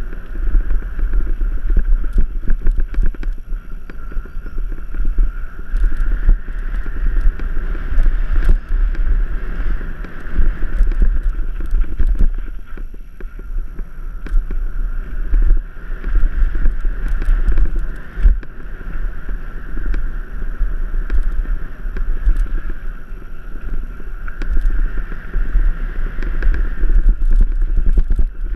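A mountain bike descending dirt singletrack fast: wind buffets the on-board camera microphone, with tyre noise on the dirt and frequent clicks and knocks as the bike rattles over bumps.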